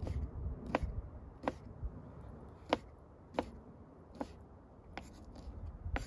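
Kitchen knife cutting raw chicken on a wooden cutting board, the blade knocking the board with sharp taps at uneven intervals, about one a second.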